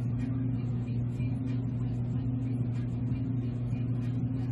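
A steady low hum with a faint hiss above it, unchanging in pitch and level.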